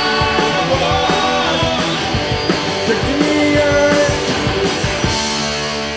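Live punk rock band playing loud, with distorted electric guitars and a drum kit, and a singer's voice over them.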